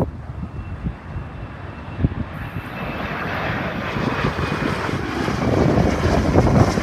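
Boeing 767-300 jet engines growing louder as the airliner takes off, with a thin high whine over the roar. Gusty wind buffets the microphone throughout.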